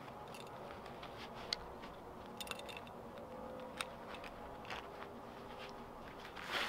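Faint clicks and rustles of a belt and machete sheath being fastened at the waist: a few sharp ticks, the loudest about a second and a half in, and a louder rustle near the end.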